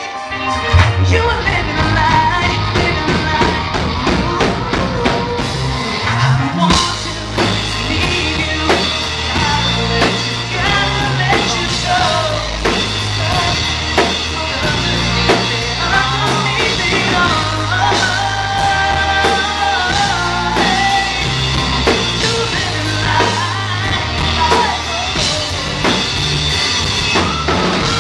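Pop-rock band playing live: drum kit, bass, electric guitars and keyboard, with a male voice singing over them. The full band comes in with a loud hit about a second in.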